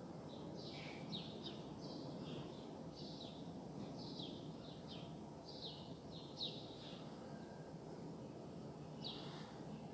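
Small birds chirping in short, quick falling notes, again and again, with a pause of a couple of seconds near the end, over a steady low background hum of outdoor noise.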